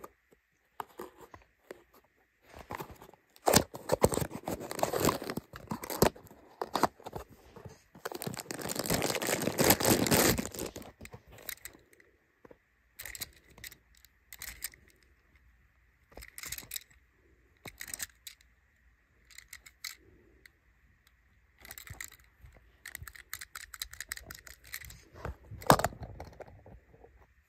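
Hands opening a small cardboard toy box and handling the die-cast model car inside: irregular rustling, scraping and tearing of cardboard with small clicks and rattles. The longest and loudest stretch of rustling comes about eight to ten seconds in, with quieter pauses between bouts of handling.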